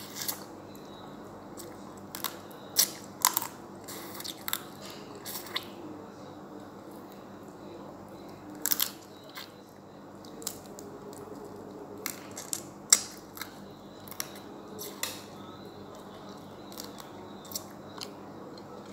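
Cooked blue swimmer crab eaten by hand up close: many irregular sharp clicks and crunches of shell being bitten and cracked apart, with chewing.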